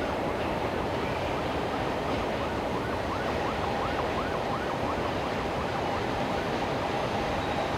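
A siren yelping: a quick rising-and-falling wail repeated about three times a second for a few seconds in the middle, over steady rumbling noise.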